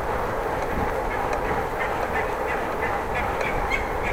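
A bicycle ticking rapidly and regularly while being ridden, about five ticks a second, over steady wind and riding noise.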